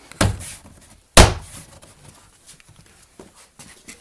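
Two sharp knocks about a second apart, the second louder: the plastic retaining clips of a Mercedes-Benz B-Class (W245) door trim panel being pushed home into the door by hand.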